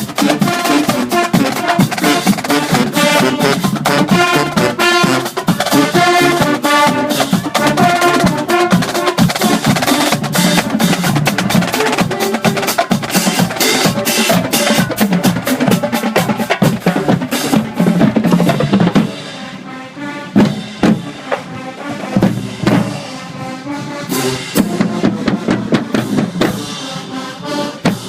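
Marching band playing: horns over snare and bass drums. About two-thirds of the way through the horns drop out, the music gets quieter, and mostly drums carry on.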